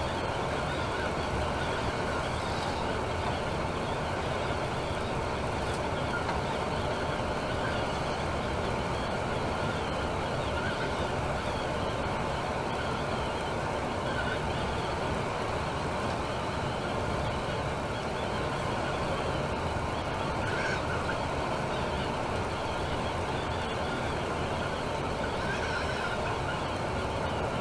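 Temsa Maraton coach driving at speed on a motorway: a steady mix of engine rumble and road and tyre noise, with a few faint short ticks or rattles.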